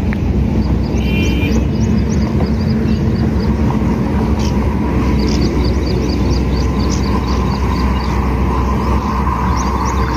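Steady, loud low outdoor rumble, with a small bird chirping high and quick in runs of about three chirps a second that stop and start again.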